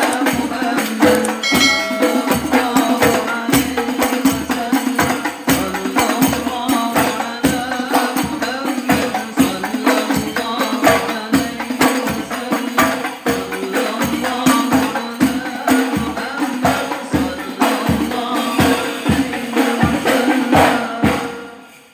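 Hadrah ensemble of hand-played rebana frame drums beating a fast, dense rhythm together, dying away at the very end.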